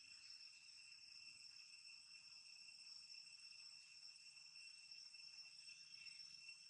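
Faint, steady chorus of insects shrilling in several high pitches at once, with no breaks.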